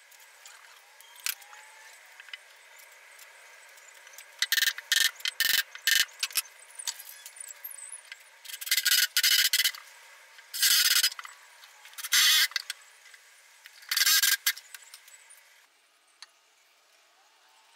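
Cordless drill driving screws into wood in short bursts: a cluster of quick pulses, then four longer runs of about half a second to a second each.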